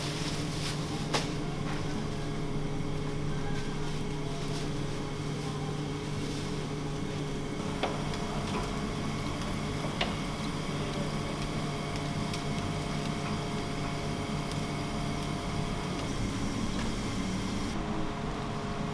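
Steady mechanical hum of restaurant kitchen equipment, with a few sharp clicks and knocks.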